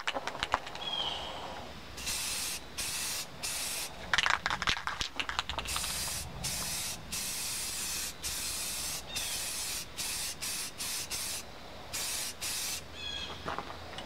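Aerosol spray paint can hissing in many short bursts with brief gaps, starting about two seconds in, with a few knocks about four seconds in.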